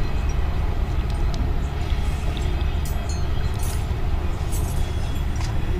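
Steady low mechanical rumble, with a few faint light clicks about halfway through.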